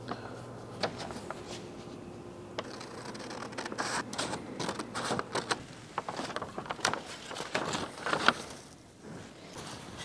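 Scissors cutting a paper template, with paper crinkling and rustling. The short snips and rustles start about two and a half seconds in and thin out near the end.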